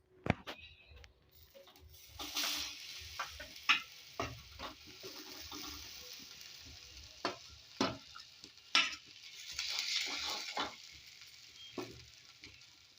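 Fresh ginger being grated by hand on a grater: irregular scraping strokes and a few sharp knocks, over a steady faint hiss.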